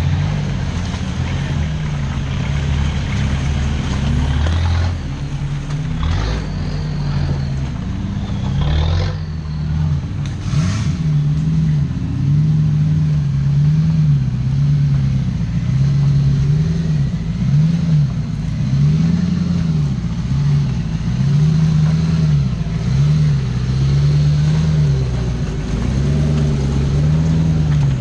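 Off-road 4x4 engine revved up and down over and over, its pitch rising and falling about every one and a half to two seconds, with a few short knocks in the first half.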